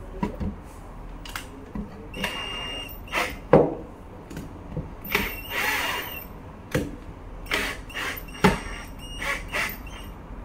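Irregular clicks, knocks and short metallic scraping rattles from a wooden drawer and its metal runner slides being handled and fitted, several of them with a faint high ring.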